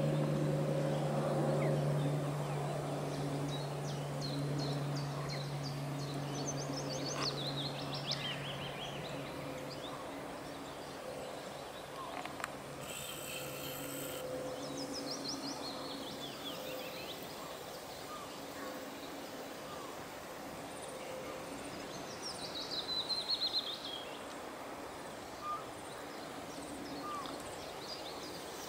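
Songbirds singing in spring scrub: several short, quick descending song phrases repeat every several seconds over a steady outdoor background. A low steady hum fades out about ten seconds in.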